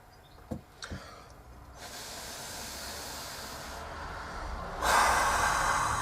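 Two long breaths blown onto freshly applied super glue to speed its setting: a softer airy hiss lasting about two seconds, then a louder, fuller blow near the end. Two small clicks come at the start.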